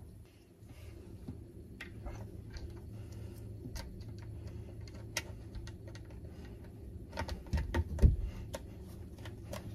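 Plastic hinge covers of a Dometic 310 toilet seat being snapped into place by hand: scattered light clicks and taps, with a few louder knocks about eight seconds in. A steady low hum runs underneath.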